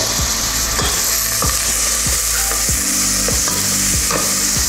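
Chopped onion and garlic sautéing in a stainless steel stockpot, with a steady sizzle. A wooden spoon stirs and scrapes the pot about once every half-second to second.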